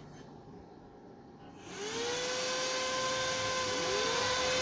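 Inverter cooling fans starting up. A whirring hiss comes in just under two seconds in, with a tone that rises and then holds steady. A second fan's tone rises and joins it near the end.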